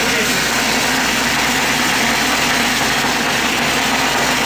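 Glassblower's bench gas torch burning with a steady, even hiss.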